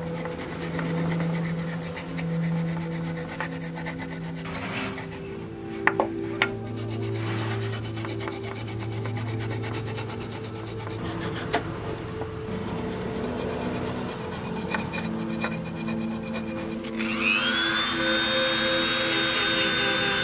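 Sandpaper on a wooden stick rubbed back and forth over rusty steel pliers, scraping the rust off. Near the end a Dremel rotary tool spins up with a rising whine and settles into a steady high whine.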